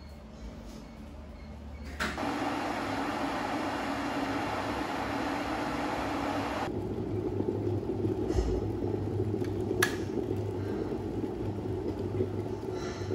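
Glass electric kettle heating water to the boil. A rushing hiss starts about two seconds in and turns into the lower, bubbling sound of a rolling boil about halfway through, with a single click near the end.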